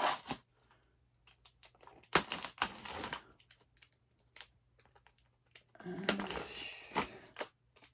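Utility knife cutting the packing tape along the edge of a cardboard mailer box, with scratching, tearing and clicking from the cardboard in short bursts, loudest about two seconds in and again about six seconds in.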